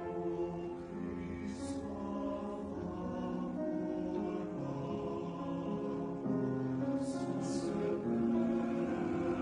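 Men's chorus singing slow sustained chords as background music.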